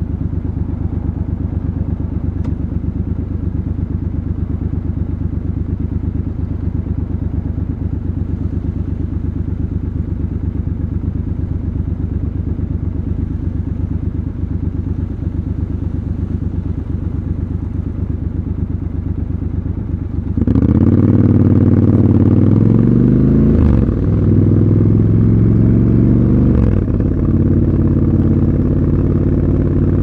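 Triumph Scrambler 1200 XC's 1200 cc parallel-twin idling steadily at a standstill. About two-thirds of the way through it revs up as the bike pulls away, rising in pitch with two short breaks for upshifts.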